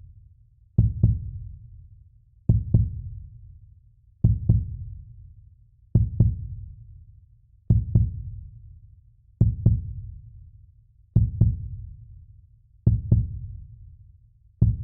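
Heartbeat sound: slow, even lub-dub double thumps, about one pair every 1.7 seconds, each with a short fading tail.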